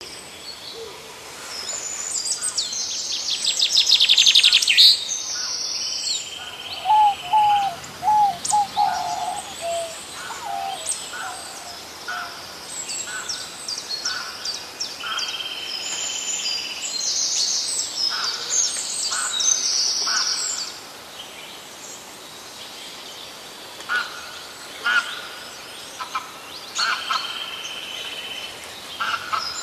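Several birds calling and chirping: repeated high twittering trills and chirps, with a run of lower, repeated whistled notes about a quarter of the way in.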